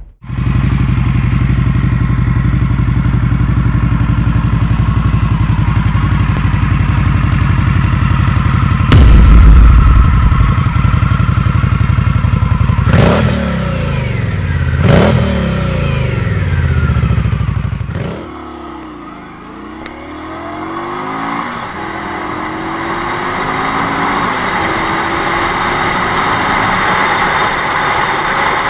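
Indian Scout V-twin motorcycle idling, revved sharply three times, with its exhaust dropping back to idle after each rev. About two-thirds of the way in it changes to the bike riding on the road, the engine rising in pitch as it pulls up through the gears.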